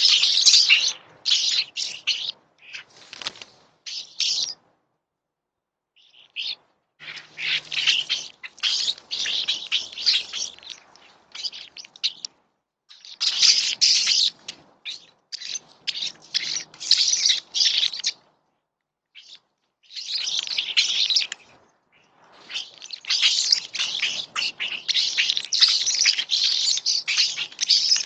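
Wild birds chirping in dense, busy bursts of high, rapid calls, with several brief gaps of silence between the bursts.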